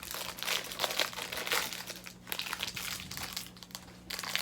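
A twist-wrapped candy's wrapper crinkling and crackling as it is picked and pulled open, the crackle coming on and off with brief breaks about two seconds in and near the end.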